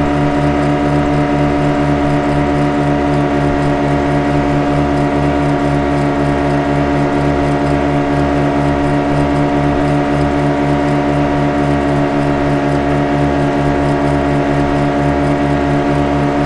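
Motorboat engine running at a steady speed: a continuous hum with a regular low throb and no change in pitch.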